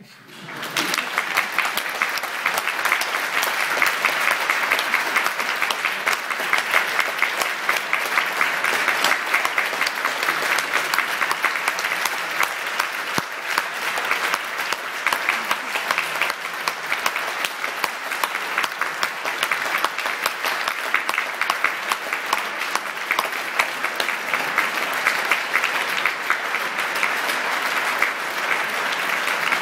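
Concert audience applauding at the end of a piece: the clapping starts abruptly within the first second and carries on, steady and dense.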